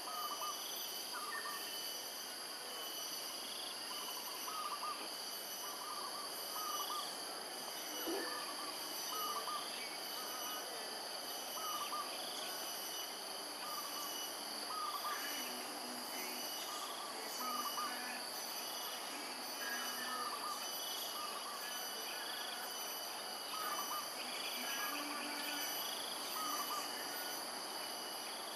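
A steady high insect chorus, with short high calls repeating about every second or so and scattered low hooting notes.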